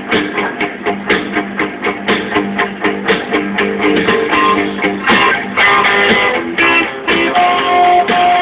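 Guitar music with a steady strummed rhythm.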